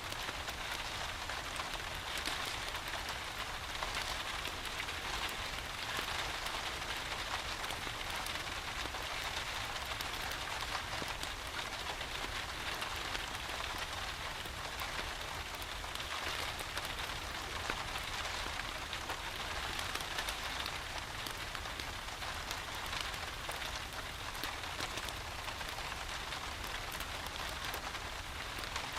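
Steady rain falling, dense and even, with scattered small sharp clicks and crackles from a wood fire in a fireplace.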